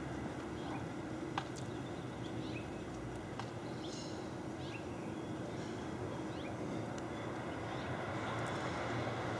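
Steady hum of distant traffic, with a scatter of short high falling chirps in the middle and a few sharp clicks.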